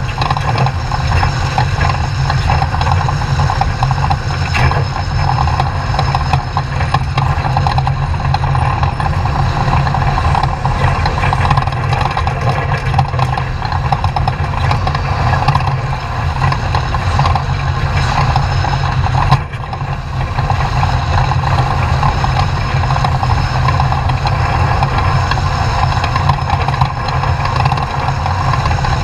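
Off-road race truck's engine running hard and steadily while driving, with continuous road noise. The sound drops briefly about two-thirds of the way through.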